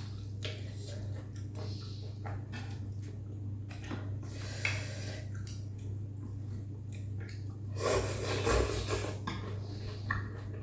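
Someone eating a bowl of bún mắm noodle soup: scattered clicks of utensils against the bowl and chewing, with a louder, longer noisy stretch about eight seconds in, over a steady low hum.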